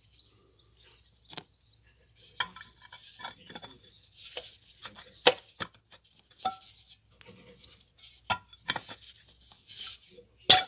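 Metal parts of a small wind turbine's head being handled and fitted together: scattered clinks, knocks and light scrapes of metal on metal, one briefly ringing about six seconds in, the sharpest knock just before the end.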